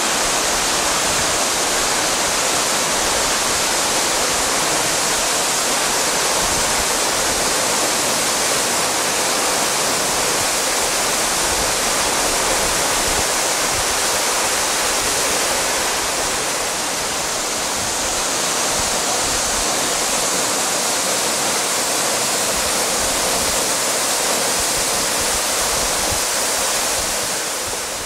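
Waterfall plunging into a rock pool: a loud, steady rush of falling water that eases a little about halfway and falls away near the end.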